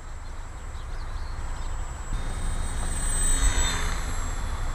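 E-flite P-40 Warhawk 300 model plane's small electric motor and propeller whining as it flies low past, growing louder to a peak about three and a half seconds in and dropping in pitch as it goes by.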